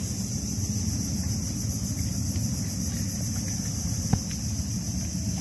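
Small boat's motor running steadily as a low rumble, under a steady high insect buzz, with a single sharp knock about four seconds in.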